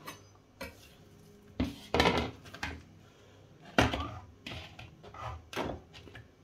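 A grey plastic bowl and kitchen things being handled on a countertop and a digital kitchen scale: a handful of knocks and short clatters, the loudest about two and about four seconds in.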